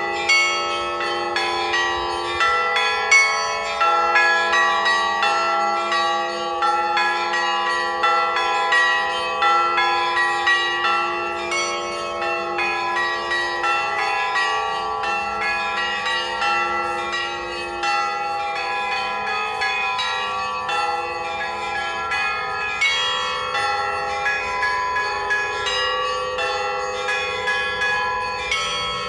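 Russian Orthodox church bells rung by hand in a continuous peal: many bells of different pitches struck in quick, unbroken succession, their tones ringing on over one another.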